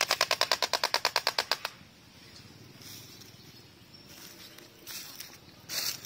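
Black-necked stork clattering its bill: a rapid, even rattle of about a dozen strokes a second that stops about a second and a half in. A single sharp knock sounds near the end.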